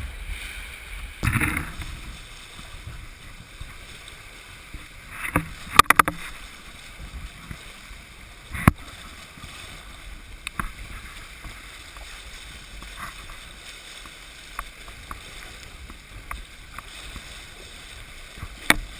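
Water rushing and splashing along the hull of a heeled sailboat sailing hard on a close reach. Sharp slaps and knocks of waves against the hull come every few seconds; the loudest are about six and nine seconds in.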